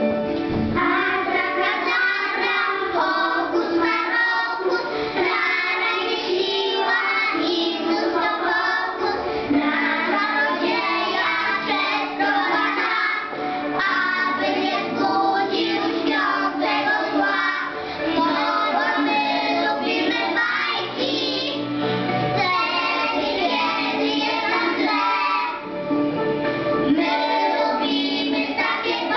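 A group of young children singing a song together in unison, with an instrumental accompaniment.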